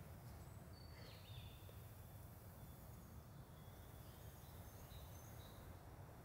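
Near silence: faint outdoor background with a few distant bird chirps.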